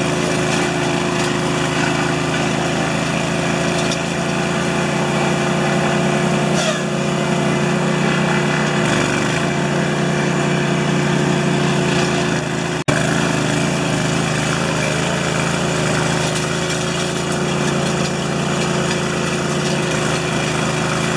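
A small engine running steadily at one constant speed, with a brief drop-out about 13 seconds in.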